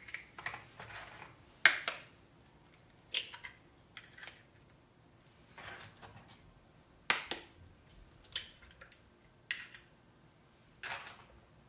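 Eggs being cracked one after another against the rim of a mixing bowl: a series of sharp shell cracks, about one every second or so.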